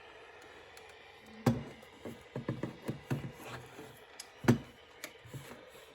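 Faint steady hiss of a weather radio tuned to an empty channel, with a scatter of clicks and knocks from handling the equipment. The two loudest knocks come about three seconds apart.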